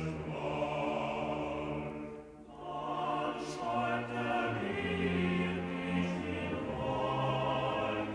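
Background classical choral music: a choir singing held chords, with a brief pause about two and a half seconds in before the singing resumes.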